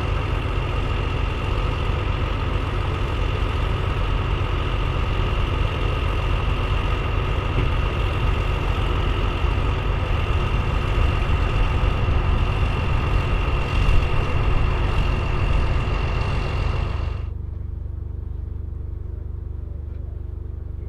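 John Deere 7710 tractor's six-cylinder diesel engine idling steadily: a deep rumble with a steady high whine above it. About three-quarters of the way through, the sound cuts to a quieter, lower engine running.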